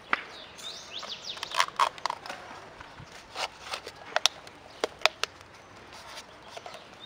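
Plastic juice cups and their snap-on lids and straws being handled, giving a scatter of sharp clicks and crackles. A few short high chirps sound near the start.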